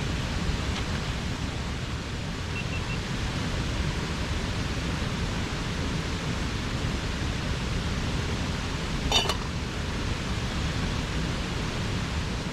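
Steady rushing of a mountain stream's water, with one short sharp clink about nine seconds in.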